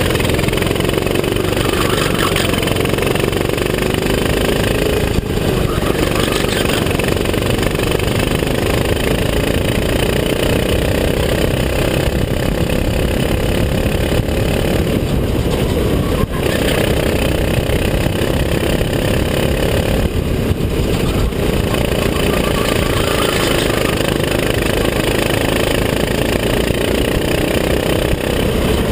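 Go-kart engine running at racing speed through a lap, its pitch climbing slowly and dropping back several times, under a dense, steady rushing noise.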